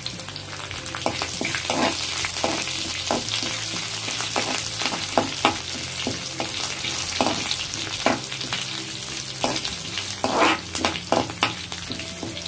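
Tempering of chana dal, green chillies and curry leaves sizzling steadily in hot oil in a pan, stirred with a steel spoon that scrapes and knocks against the pan many times.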